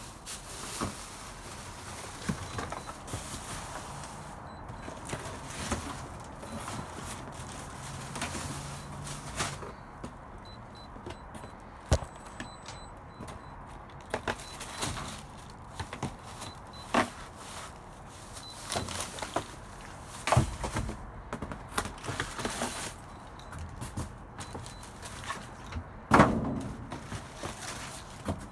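Trash being rummaged through in a dumpster: bags rustling and items clattering and knocking, with several louder thuds. A faint, high electronic beep repeats in the background, coming from something inside the dumpster.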